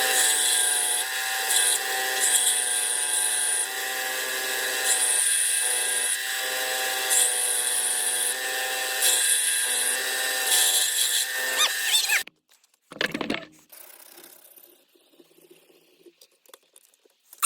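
Belt sander running while grinding a steel screwdriver shaft to take out deep dents and scratches, a high grinding hiss coming and going as the metal is pressed to the belt and lifted off. The sander stops about twelve seconds in, with one short noise a second later.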